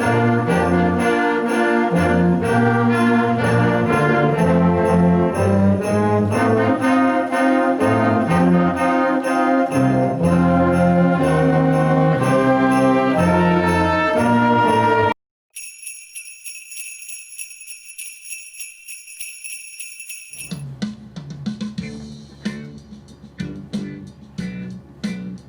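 Instrumental holiday music with jingle bells and brass, which cuts off abruptly about 15 seconds in. A few seconds of high, steady bell-like ringing follow, then a quieter piece with a steady beat begins.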